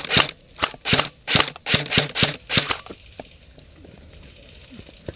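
Footsteps crunching through dry leaves and brush, about two to three steps a second, stopping about three seconds in.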